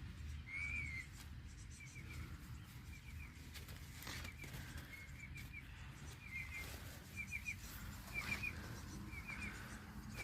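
Emu chicks peeping: short high chirps in quick runs of two to four, repeated all through, with a couple of brief rustles about four and eight seconds in.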